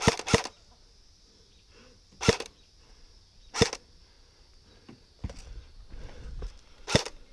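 Airsoft guns firing: the last two shots of a rapid burst at the very start, then single sharp shots about two, three and a half, and seven seconds in. Low rustling handling noise between the later shots.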